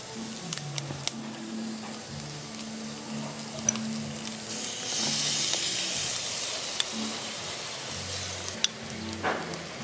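Snails grilling in their shells over an open fire, the juices and sauce inside sizzling and bubbling, with scattered small pops and crackles. The sizzle swells about five seconds in, then eases.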